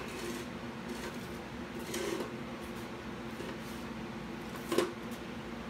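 Steady low hum of shop equipment, with a soft handling knock about two seconds in and a sharp knock near the end as welding gear is moved into place.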